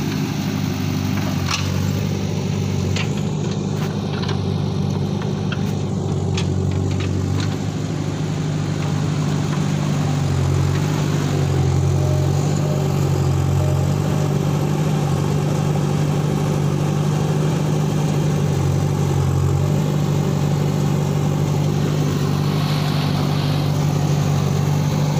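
JCB backhoe loader's diesel engine running steadily, its pitch shifting a couple of times. A few sharp clicks sound in the first several seconds.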